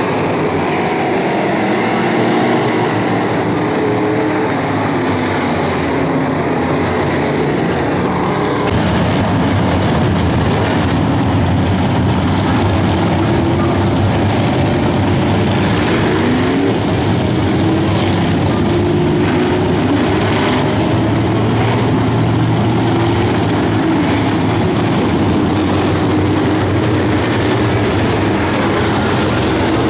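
Several dirt-track race cars running at speed around the oval, a steady engine din whose pitch rises and falls as cars pass.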